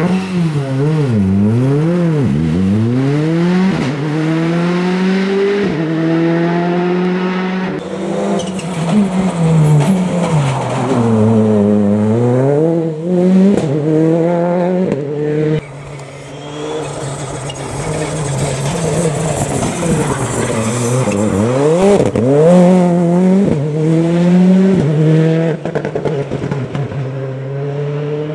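Citroën C3 R5 rally car's turbocharged 1.6-litre four-cylinder engine driven hard. Its pitch climbs through the gears and drops sharply under braking and downshifts, again and again as it passes through the bends.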